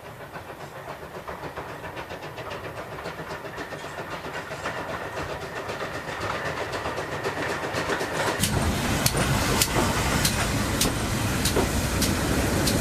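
Steam train drawing closer, its rapid rhythmic beats and hiss growing steadily louder. About eight seconds in a deeper rumble joins, with sharp clicks at a steady pace as the wheels run over the rail joints.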